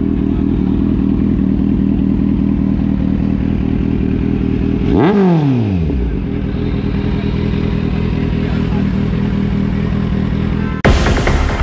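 Kawasaki Ninja 1000's inline-four engine idling through its twin exhausts, with one quick blip of the throttle about halfway through: the revs rise sharply and fall straight back to idle. Near the end, loud electronic music cuts in.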